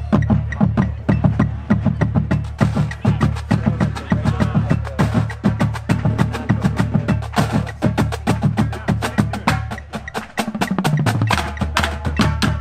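Marching drumline of snare drums, tenor drums and tuned bass drums playing together: rapid, dense stick strokes over pitched bass drum notes. About ten seconds in the playing thins briefly, with a run stepping down through the bass drums before the full line comes back in.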